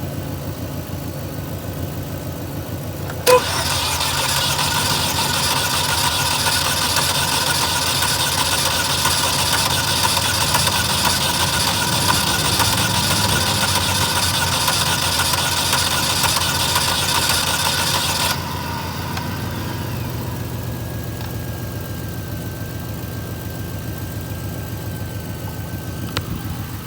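2012 Chevy Malibu's 2.4-litre four-cylinder engine being cranked by its starter motor without catching. After a click about three seconds in, the starter whirs and turns the engine over steadily for about fifteen seconds, then stops abruptly. This is a crank-no-start: the engine turns over but never fires.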